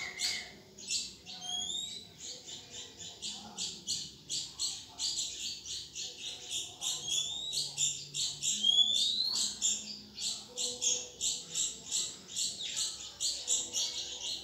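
Red-whiskered bulbul nestlings begging to an oriental magpie-robin foster parent: rapid, high-pitched calls repeated about four times a second, with a few short rising whistles among them.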